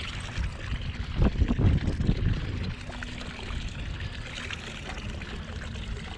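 Water sloshing against a small boat's hull under steady noise, with a louder burst of low rumbling about a second in that lasts over a second.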